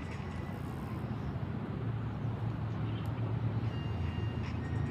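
Steady low rumble of a vehicle engine running nearby, with a faint high tone about four seconds in.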